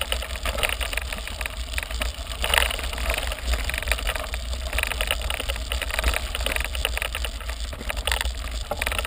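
Mountain bike climbing a gravel road, picked up by a camera on the bike or rider: irregular crunching and rattling from the tyres on loose gravel over a steady low rumble of wind and vibration on the microphone.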